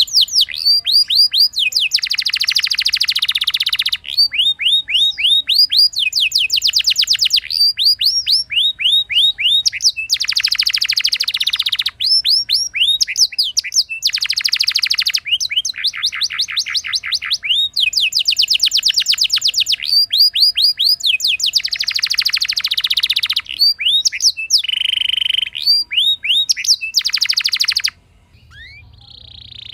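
Domestic canary singing a long rolling song: high-pitched rapid trills of repeated notes, each phrase lasting a second or two before switching to another. The song breaks off about two seconds before the end.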